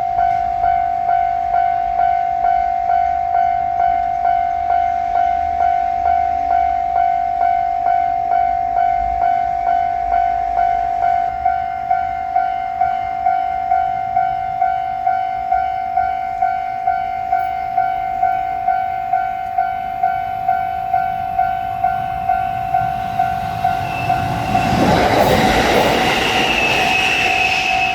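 Japanese level-crossing warning bell ringing a steady, evenly repeated single-pitched ding, about one and a half strikes a second. About twenty-four seconds in a train passes through the crossing, its noise rising loud over the bell, with a high steady tone joining near the end.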